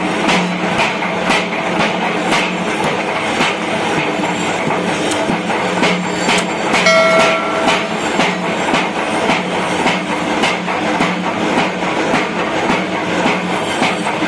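Mechanical power hammer running and pounding steel in a regular rhythm of about two blows a second over a steady machine hum, with a brief ringing tone about halfway through.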